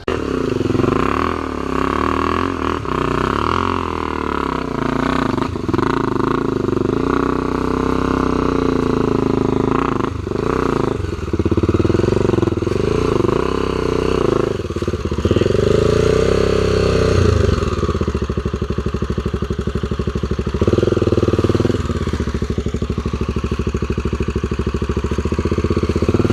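Off-road motorcycle engine running under load on a climb, revs rising and falling repeatedly as the throttle is worked, settling into a lower, pulsing run in the second half.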